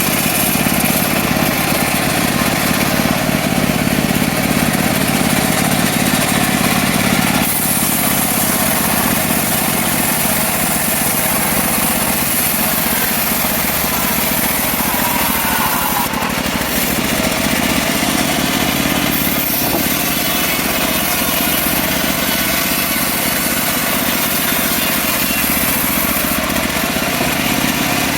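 Petrol engine of a portable bandsaw sawmill running steadily at a constant speed.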